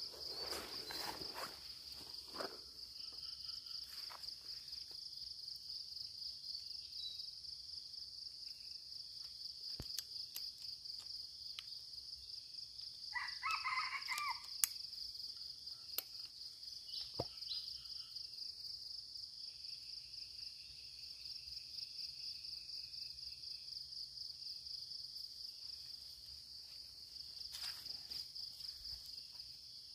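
Steady high-pitched drone of insects, with a distant red junglefowl cock crowing once about halfway through, and a few faint clicks.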